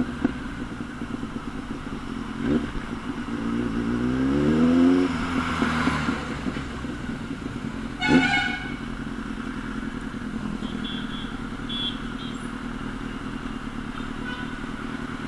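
Kawasaki Z800's inline-four engine through an aftermarket exhaust, running under the rider in city traffic, its revs climbing about three to five seconds in. A vehicle horn honks briefly about eight seconds in.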